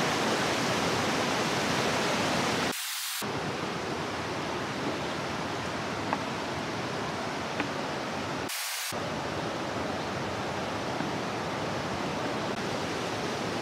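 Steady rush of water, even and unbroken. The deep part of the sound drops out briefly twice, about three and nine seconds in.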